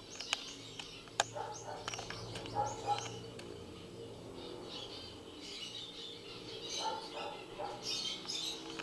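Caged zebra finches calling: short high chirps in scattered bursts, with a few sharp clicks in the first second or so.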